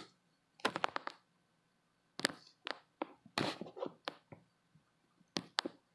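Striped knee tarantula chewing a cricket: crisp crunching clicks that come in short clusters, several at a time, with brief silent gaps between them.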